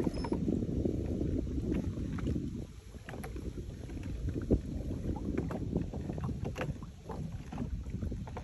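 Wind rumbling on the microphone aboard a boat sitting still on the water, with scattered light clicks and knocks, and a brief lull about three seconds in.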